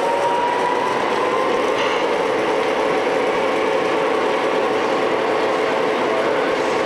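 O gauge three-rail model diesel locomotives running slowly along the track: a steady whine with a faint drift in pitch over a steady background din.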